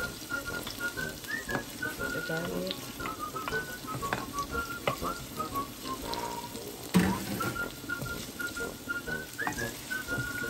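Sliced onions and garlic sizzling in hot oil in a nonstick frying pan, with short high squeaks through most of it, while a wooden spatula stirs them and clicks against the pan, once sharply about seven seconds in.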